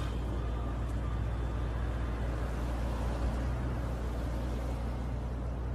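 Bentley convertible's engine idling: a steady low hum from the exhaust.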